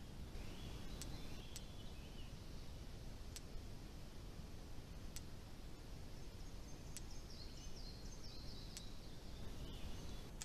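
Faint birds chirping in short runs of notes over a steady low background rumble, with a sharp click about every two seconds.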